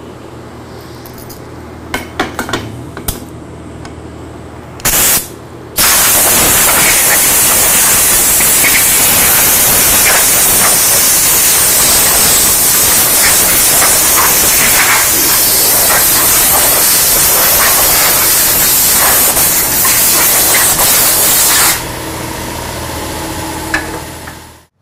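Arc welding on a steel ship's hatch: a brief arc strike about five seconds in, then a steady crackling, frying arc for about sixteen seconds as a root pass is run on the vertical seams. The arc stops near the end, leaving a low steady hum.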